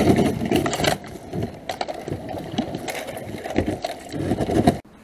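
Kayak hull and paddle pushing through thin creek ice: continuous crunching and scraping with many sharp cracks, loudest in the first second.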